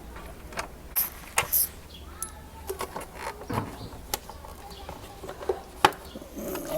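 Irregular clicks and knocks of a bolt being unscrewed and the plastic side cowl being worked off a Yamaha RX100 motorcycle.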